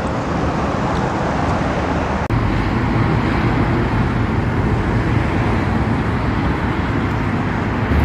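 Steady road traffic noise, a dense, continuous rumble, with a brief dropout just over two seconds in.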